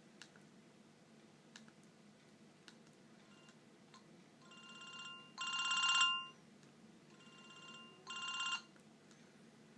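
Siemens MC60 mobile phone ringtone played through the phone's small speaker: a rapid trilling ring sounds twice, each time starting soft and then jumping louder. A few faint clicks come before it.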